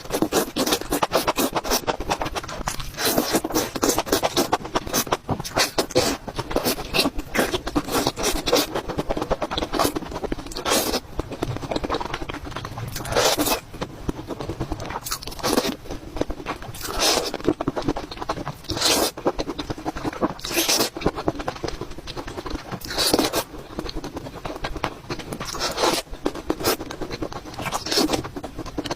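Close-miked eating sounds of a mukbang: chewing food, heard as a dense run of short, sharp crackling and scraping strokes, with stronger ones every second or two.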